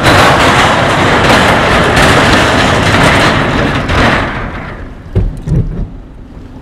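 Car tyres running over the deck of a steel truss bridge, heard from inside the car: a loud, dense road noise that drops away about four seconds in as the car rolls off the bridge, followed by a couple of low thumps.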